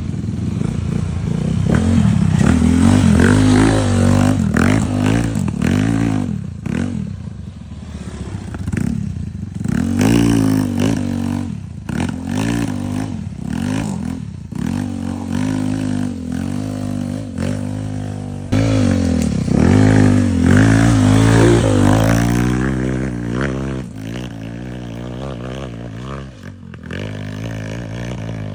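Small motorcycle engine on a rough trail, its pitch rising and falling again and again as the throttle is worked, with rattling and knocks throughout.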